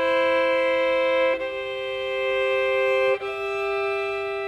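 Violin playing slow, sustained double stops, two notes bowed together, moving to a new pair of notes about one and a half seconds in and again about three seconds in. This is an intonation exercise mixing sixths, fourths and octaves.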